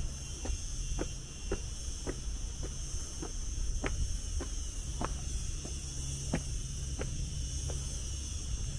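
Footsteps on stone, about two a second, climbing stone steps and then walking onto paving. Under them is a steady low wind rumble on the microphone.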